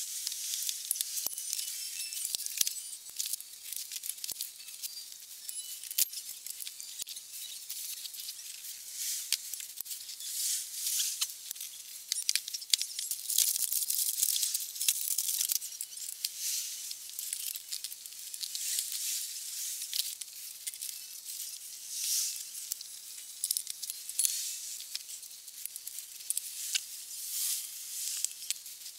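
Rustling, scratching and scattered light clicks and clinks of hands handling plastic bags, cardboard and a spoked motorcycle wheel. It is busiest about halfway through.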